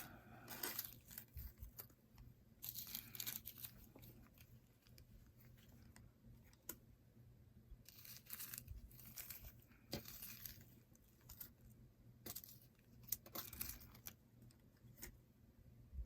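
Faint, intermittent crinkling of small plastic bags of diamond painting drills being handled during kitting up, with a few light clicks.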